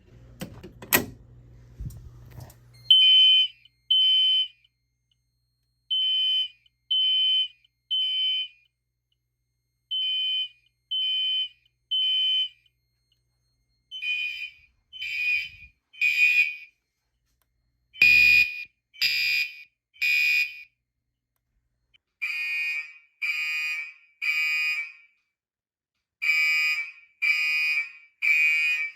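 Gentex fire alarm horns sounding in the temporal-3 evacuation code: groups of three short beeps about a second apart, each group followed by a pause, repeating. A single click comes about a second in, just before the first beeps.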